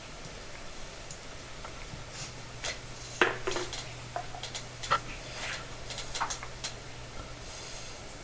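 Black iron pipe nipples and fittings being handled, making scattered light metallic clinks and knocks, with a faint steady low hum underneath.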